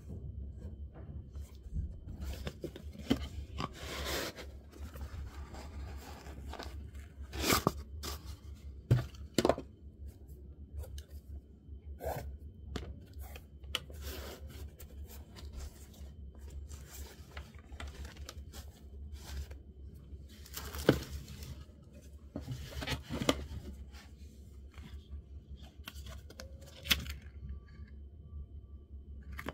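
Intermittent rustling, crinkling and scraping of a hiking shoe and its paper packing being handled in a cardboard box, with a few sharper rustles, over a steady low hum.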